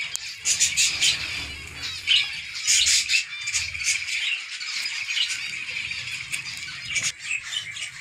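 A colony of zebra finches calling, many short calls overlapping continuously.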